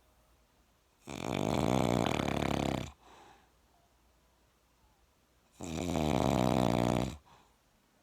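A sleeping person snoring loudly: two long, rattling snores of about two seconds each, roughly four and a half seconds apart.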